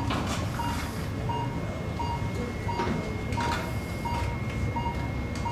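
Hospital ward ambience: a patient monitor beeping evenly, about three short beeps every two seconds, over a low steady room rumble with a faint constant high tone and a few brief clatters.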